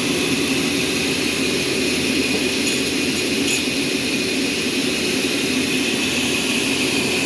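Sawmill machinery running steadily, a continuous mechanical noise with a high, even whine.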